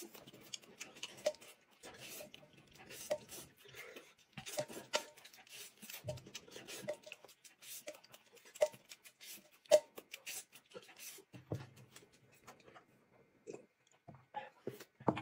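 Close-up eating sounds: chewing and mouth noises mixed with irregular small clicks and taps of chopsticks and dishes, as rice with braised pork is eaten.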